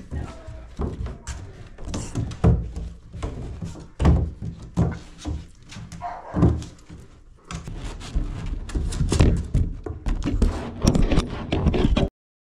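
Labrador retriever puppies scrambling and playing on a plastic bench and hard floor, with irregular thumps and knocks from paws and bodies and an occasional brief yip.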